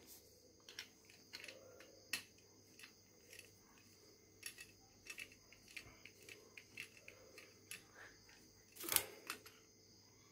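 Faint, scattered clicks and taps of brass hose fittings being handled and fitted onto a power sprayer's spray lance, with a louder clatter about nine seconds in.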